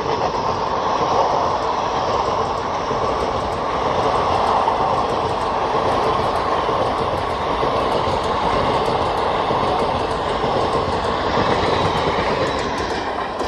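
Indian Railways express passenger coaches passing close by at speed: a loud, steady noise of wheels running on the rails, carrying on until the last coach is alongside.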